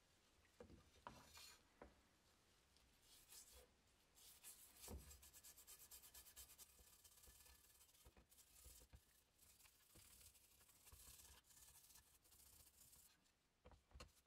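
Rusty metal license plate being scrubbed in a plastic tub of oxalic acid solution: a few light knocks at first, then quick, rasping scrubbing strokes with wet sloshing from about four seconds in, easing off shortly before the end.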